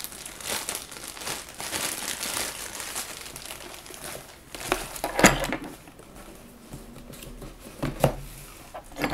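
Clear plastic bag crinkling and rustling as a spinning reel is pulled out of it, followed by a few sharp knocks of hard objects handled on the desk about five seconds in and again near the end.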